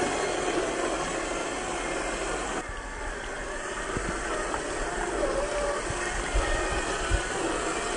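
Radio-controlled rock crawler's 550 21-turn electric motor and gearbox whining, the pitch wavering with the throttle, over the rush of creek water. A couple of low knocks near the end.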